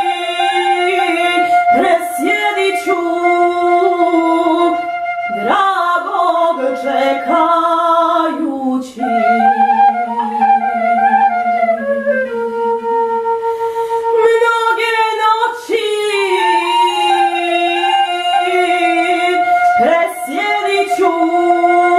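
A woman singing a slow melody together with a small vertical flute that holds long, steady notes. The voice and flute briefly thin out about nine seconds in, then carry on.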